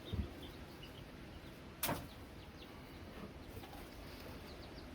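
A single sharp crack about two seconds in, with a softer thump at the start, over faint, high, scattered bird chirps.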